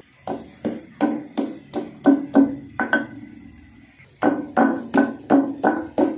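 Stone pestle pounding a garlic clove in a stone mortar (cobek and ulekan): rapid repeated strikes, about three a second, each with a short low ring. The strikes pause for about a second near the middle, then resume.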